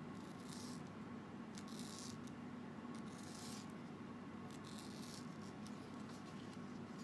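Scissors cutting through banana leaf, four separate short snips over a steady low hum.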